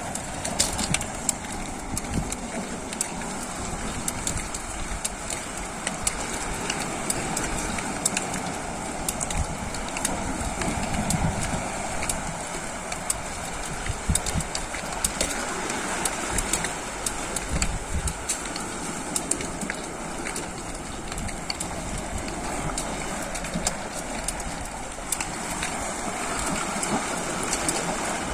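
Steady outdoor rush of sea and wind over a rocky shore, dotted with many small clicks and knocks from footsteps on rock and rattling spearfishing gear.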